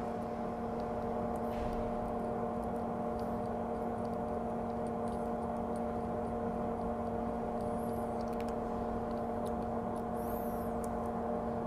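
Steady whirring hum of a small electric motor with several fixed tones, running evenly throughout, with a few faint small ticks.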